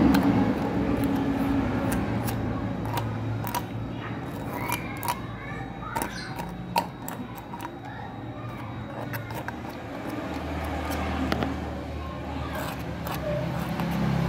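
Old exhaust manifold gasket residue being scraped off the cylinder head's exhaust-port face with a small metal tool: irregular scratches and sharp clicks of metal on metal, over a low steady hum.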